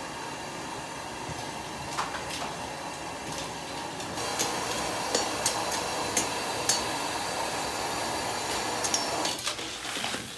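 Metal ladle clinking and scraping against a steel wok as shellfish are stirred in boiling water over a gas burner, over a steady rushing noise. The clinks come now and then at first, then often from about four seconds in.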